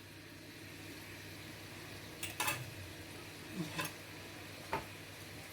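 Quiet room tone with a low steady hum, broken by a few light clicks and taps, about four of them in the second half.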